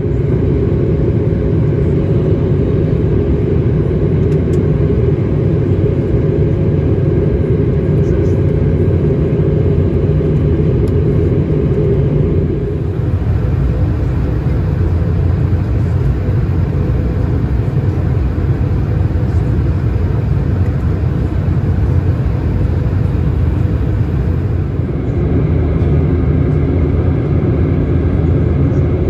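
Steady cabin rumble of an Airbus A220-300 in descent: engine and airflow noise from its Pratt & Whitney PW1500G geared turbofans. The rumble shifts in tone twice, lighter about 13 seconds in and fuller again near the end.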